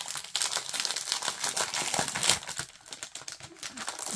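Clear plastic packaging sleeve of a 12x12 scrapbook paper kit crinkling and rustling as it is handled, loudest a little past halfway.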